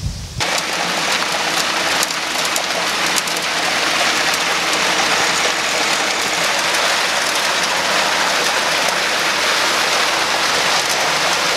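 Wet concrete pouring from a mixer truck's chute into slab forms over rebar mesh: a steady rushing hiss that starts suddenly about half a second in.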